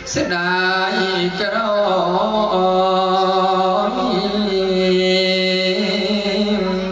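A Buddhist monk's voice chanting in a slow, drawn-out melody, holding long notes that shift pitch only now and then.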